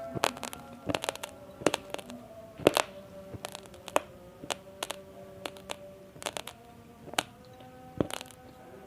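Raw basmati rice grains crunching between the teeth as they are chewed: sharp, irregular crunches about twice a second, over faint background music with held notes.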